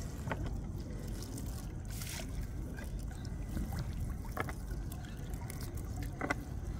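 Water trickling and dripping off a gill net being pulled in from the river over a small boat, with a few light knocks.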